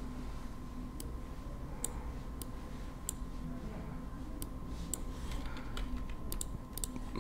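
Scattered clicks of a computer mouse and keyboard as the work goes on, coming more often in the second half, over a faint steady hum.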